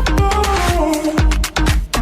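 Electronic dance music with a thumping kick drum on a steady beat, deep bass and a synth melody that steps down in pitch.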